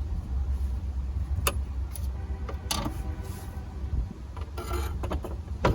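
Scattered clicks and a short rattle of small metal parts being handled over a steady low rumble.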